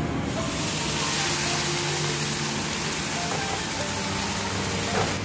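Freshly washed water spinach (kangkung) dropped into hot oil in a steel wok, setting off a loud, steady sizzle about a third of a second in, with a short knock near the end. Background music plays underneath.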